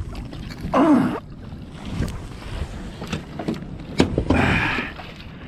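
A heavy, waterlogged metal chair fresh out of the water being handled: sharp knocks and a rush of water sloshing and draining off it, with a strained grunt of effort about a second in.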